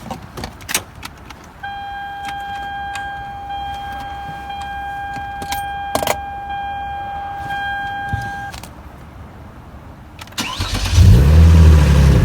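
Keys clicking, then a steady high electronic warning tone from the car for several seconds. Near the end the Hyundai Genesis Coupe's 3.8-litre V6 cranks, starts and runs loudly.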